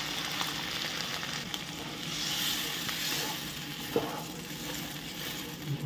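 Thick fig-and-potato masala sizzling and bubbling in a hot non-stick wok as water is poured in, with a wooden spatula stirring through it. A single knock about four seconds in.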